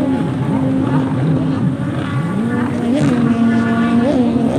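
Engines of several racing jet skis running at once, their pitch holding steady and gliding up and down as they speed up and slow. One rises about two seconds in and drops back near the end.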